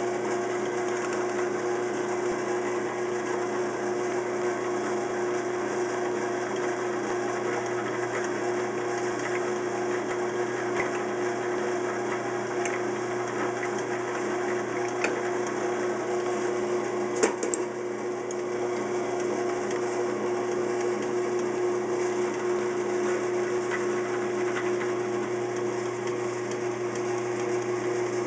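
Vintage 1950s Rockwell Delta drill press running with a steady hum while it drills mounting holes in small metal lamp-socket brackets. A couple of brief clicks come just past the middle.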